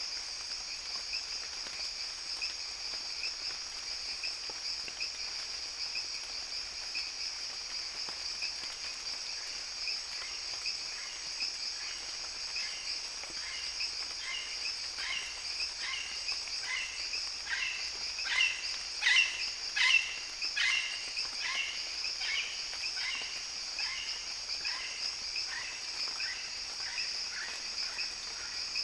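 Rainforest ambience: a steady, high-pitched drone of insects. In the middle, a run of short, repeated animal calls builds up, peaks about two-thirds of the way through, then fades.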